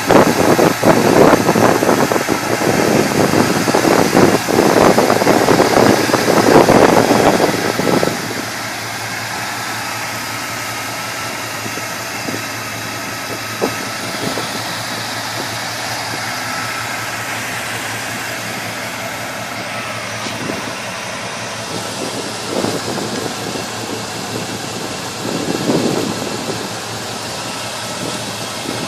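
Truck engine running with the air-conditioning blower on. It is loud and uneven for about the first eight seconds, then settles into a steady hum and hiss.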